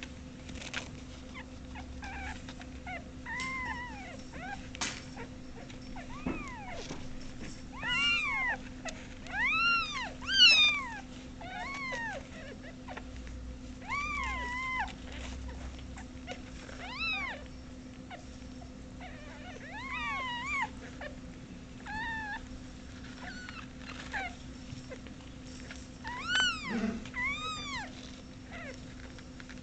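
Young kittens meowing, high-pitched arched mews repeated every second or two, with the loudest cluster about ten seconds in. A steady low electrical hum runs underneath.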